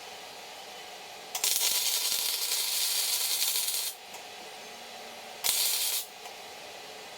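Electric arc welder laying tack welds on steel: a crackling, sizzling arc for about two and a half seconds starting over a second in, then a second short burst of about half a second.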